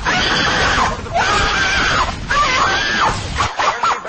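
A child screaming and wailing in long, wavering, high-pitched cries with brief breaks between them.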